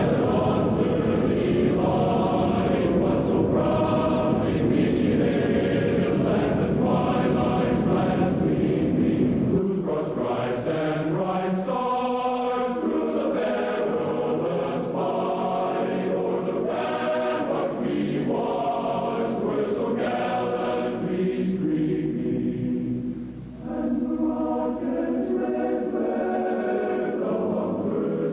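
Choir chanting in long, sustained notes. A low rumble runs under the voices and stops about ten seconds in.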